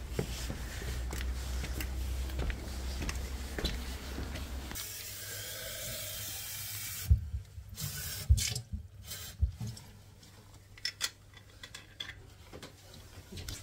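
Low handling rumble for the first few seconds. Then water runs into a container for about two seconds, followed by scattered clinks and knocks of a bottle and its cap being handled.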